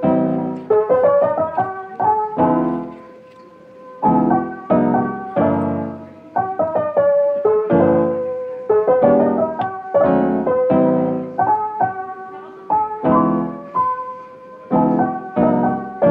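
Background music: a slow piano tune, notes and chords struck one after another.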